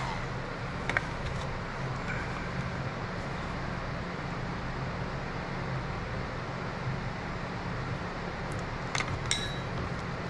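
Steady low hum with a few light clicks and taps of small parts being handled: one about a second in and a couple near nine seconds.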